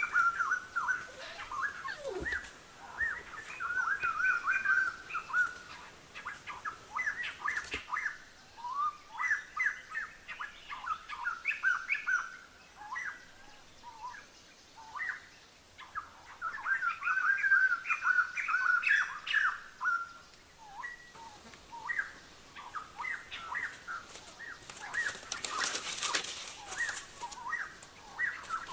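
Small birds chirping and twittering in quick runs of short notes, with a brief hissing rush of noise a few seconds before the end.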